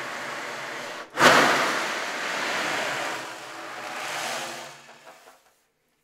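Ocean drum, BBs rolling across a goat-skin head in a steady surf-like wash. About a second in, a sudden loud crash as the drum is tipped and the BBs rush across the skin like a breaking wave. The rush then dies away, with a smaller swell before it fades out near the end.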